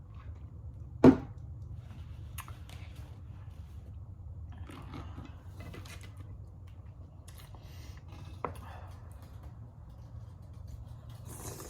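A person eating sausage, rice and cucumber close to the microphone: soft chewing and mouth noises, with one loud sharp knock about a second in and a lighter one later on, over a steady low hum.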